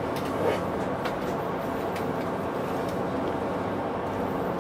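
Steady drone of an express passenger boat's engines running underway, a constant low hum under an even rush of noise, with a brief knock about half a second in.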